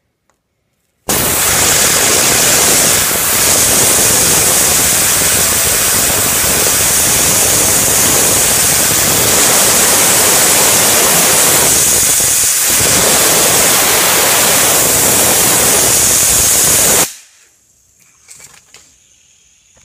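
Compressed air from an air compressor's nozzle blasting at a fidget spinner: a loud steady hiss that starts abruptly, dips briefly twice, and cuts off suddenly after about sixteen seconds.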